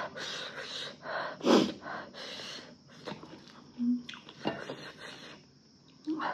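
Close-up eating sounds of a person chewing and slurping food, mixed with sharp breaths and sniffs, in irregular bursts. A short hum comes about four seconds in.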